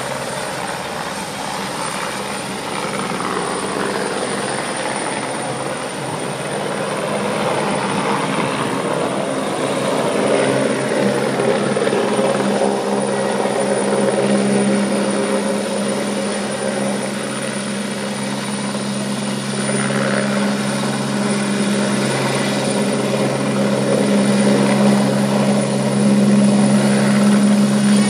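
Light helicopter's rotor and engine running, a steady drone with a low hum that grows louder over the second half.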